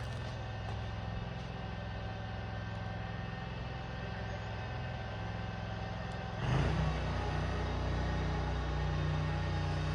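A motor running steadily with a low hum. It gets suddenly louder about six and a half seconds in and stays louder.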